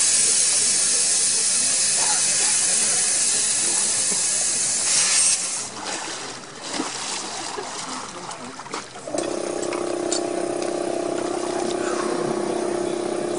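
A steady hiss that cuts off sharply about five seconds in, then some faint clicks. About nine seconds in, a steady machine hum with several pitched tones starts and holds.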